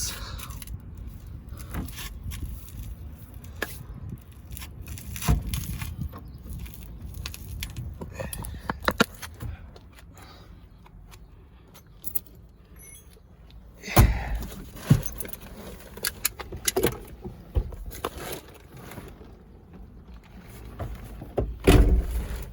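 Metal jangling and clinking with scattered knocks and clunks. The heaviest are a pair about two-thirds of the way through and another near the end.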